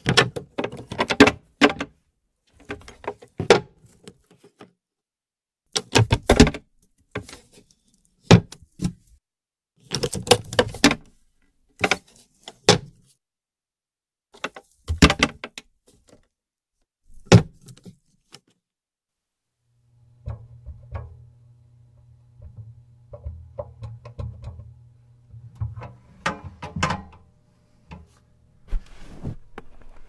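Small steel safe with an electronic keypad lock being worked: clusters of metallic clicks, clunks and rattles from its door, knob and locking bolts, coming every second or two. About twenty seconds in, a low steady hum starts under softer clicks and knocks.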